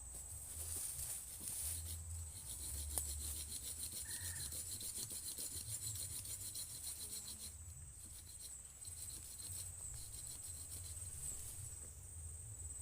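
Forest insects, crickets among them: a steady high whine throughout, joined by a fast, rasping pulsed trill that fades out about eight seconds in.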